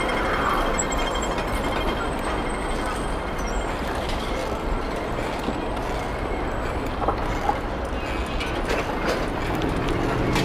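Steady street traffic noise mixed with wind rush, heard from a moving bicycle, with a few light clicks.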